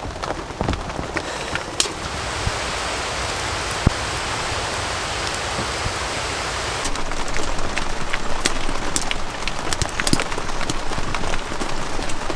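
Rain falling, a steady hiss with scattered sharp ticks of drops that come more often in the second half.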